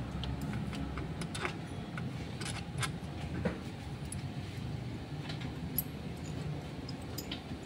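Scattered light metallic clinks and taps from hand tools and metal parts being handled at an engine, over a steady low hum.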